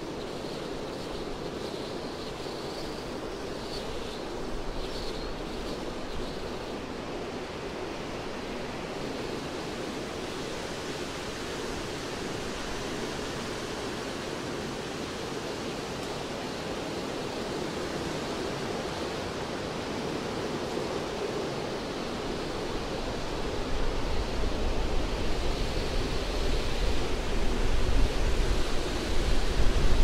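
Wind rushing through forest treetops in a steady whoosh. It swells into stronger gusts with a low rumble from about two-thirds of the way through.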